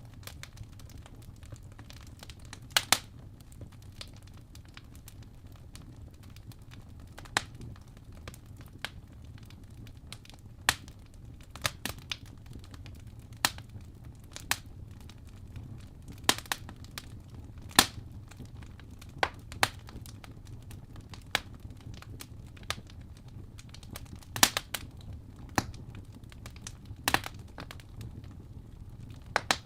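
Fire crackling: irregular sharp pops and snaps, about one every second or two, over a steady low rumble.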